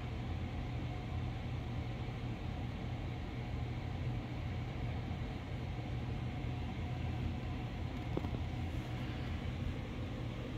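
Steady low hum and hiss of an aquarium filter running, its water flow and motor making an even drone with no distinct events.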